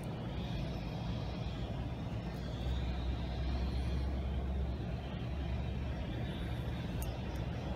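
A low, steady rumble that swells for about two seconds near the middle.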